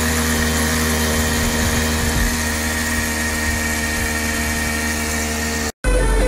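Babetta 210 moped's single-cylinder two-stroke engine running steadily while being ridden, then cut off abruptly near the end.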